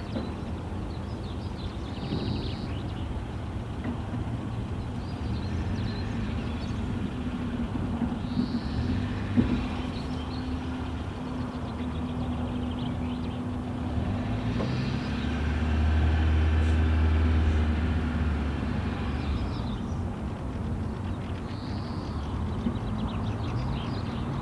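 Low, steady engine hum of a motor vehicle, swelling louder about two-thirds of the way through as it passes, with short high bird calls repeating about every six seconds over it.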